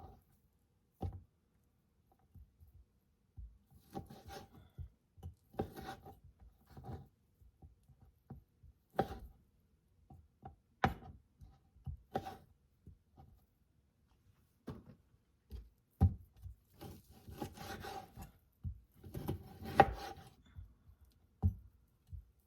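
Knife slicing grilled chicken on a cutting board: irregular sawing and scraping strokes, with a few sharp taps of the blade on the board.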